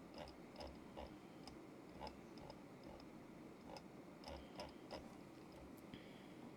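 Typing on a KZZI K75 Pro mechanical keyboard with Moment linear switches: quick, irregular keystrokes in short runs, with a brief pause about halfway through.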